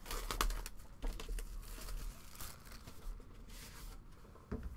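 Plastic shrink wrap being torn and crinkled off a sealed trading card box, an irregular rustling with small sharp clicks, busiest in the first second.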